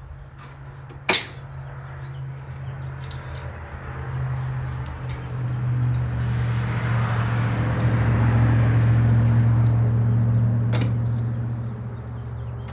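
A sharp click about a second in and a few fainter clicks and taps as a plastic dust chute is fitted onto a benchtop thickness planer. Under them runs a steady low hum that swells up in the middle and then fades again.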